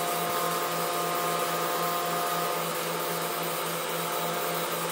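Aerosol can of engine enamel primer spraying in one long continuous pass: a steady hiss.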